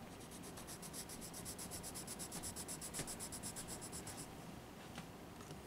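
Colored pencil scratching on paper in quick back-and-forth shading strokes, about eight a second, stopping about four seconds in; a couple of light ticks follow.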